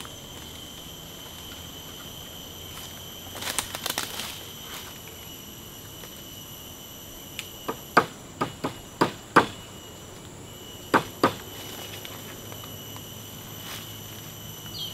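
Sharp wooden knocks and cracks of green wood being cut or snapped by hand: a soft crackle early, then a quick run of about seven sharp knocks in two seconds, and two more a little later. A steady high insect buzz runs underneath.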